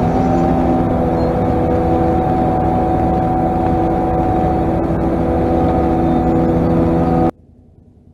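Self-propelled forage harvester chopping haylage, with the semi truck being loaded beside it, running close by: a loud, steady machine drone with several steady tones. It cuts off abruptly near the end, leaving only a faint far-off sound.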